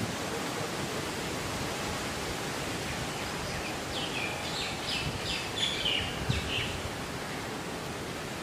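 Outdoor ambience under trees: a steady hiss of wind through the leaves, with a bird giving a quick run of short, high chirps from about three seconds in until nearly seven seconds.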